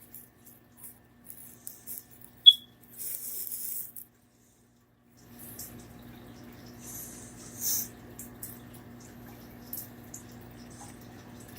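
Cloth snake bag and its string rustling and crinkling in the hands while a tight knot is worked loose, in irregular hissy bursts with small clicks and one sharp high tick about two and a half seconds in. After a second of silence a steady low hum comes in under the rustling.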